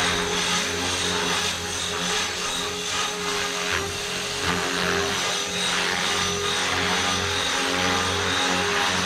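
Blade Fusion 360 3S electric RC helicopter in flight: its brushless motor and spinning main and tail rotors give a steady pitched drone with a whine. The pitch holds steady at the high head speed of the Stunt 2 idle-up mode, and the level dips slightly now and then as it manoeuvres.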